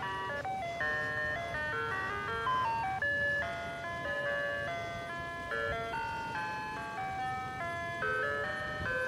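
Ice cream truck's loudspeaker playing its chiming jingle, a quick melody of bell-like notes, with a low rumble of the truck underneath as it rolls slowly along.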